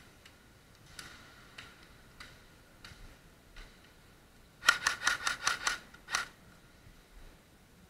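Airsoft gun firing a quick string of about eight sharp shots in a second and a half, past the middle, after a few fainter single clicks.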